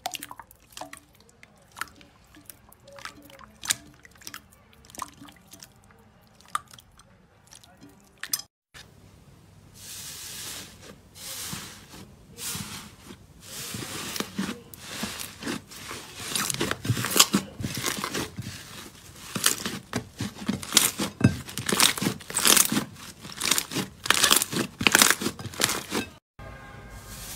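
Hands squishing slime by hand. At first it gives sparse wet clicks and pops. After a break about nine seconds in, a thick slime dotted with small beads is squeezed and kneaded, and the sound turns into dense, louder crackling and crunching.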